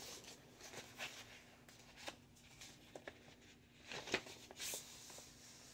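Faint rustling and crinkling of paper and thin card as a printed card folder is handled and opened and an 8x10 photo is slid out, with scattered light clicks and a sharper crackle about four seconds in.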